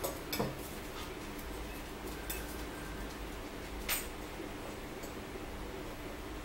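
Eating at a table: a few short clicks and clinks of cutlery against plastic plates, with chewing and mouth sounds, over a steady low room hum. The sharpest click comes about four seconds in.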